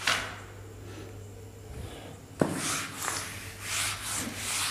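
Whiteboard eraser wiped across the board in a run of scraping strokes, starting with a knock about halfway in.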